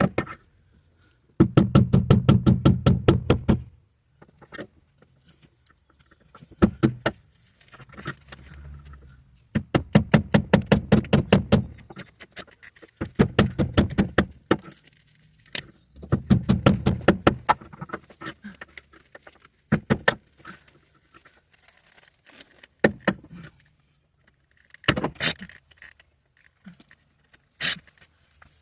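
Ratchet wrench clicking in rapid, even runs of about two seconds each, several times over, while a bolt is turned, with scattered single metallic clicks in between.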